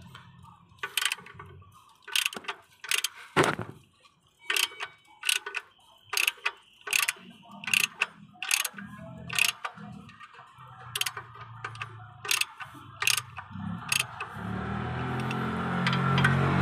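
Socket ratchet wrench clicking in short strokes as it tightens the bolts of a clutch pressure plate onto a flywheel. Near the end a motor vehicle engine comes in with a steady hum and grows louder.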